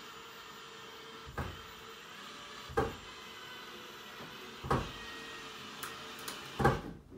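Four solid knocks on wooden lumber, a second and a half to two seconds apart, the last one the loudest, with a couple of lighter taps just before it, as a 2x4 wooden stand frame is assembled.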